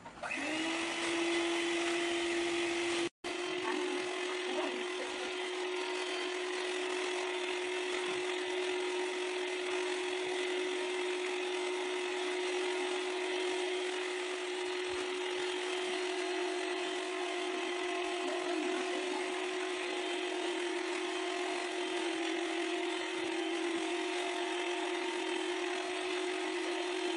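Electric hand mixer running at a steady speed, its beaters whisking a white cream mixture in a bowl, with an even motor whine. The sound cuts out for an instant about three seconds in.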